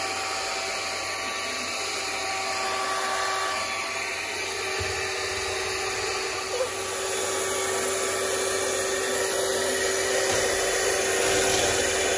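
Steady whir of a small electric motor running at constant speed, with an even hum.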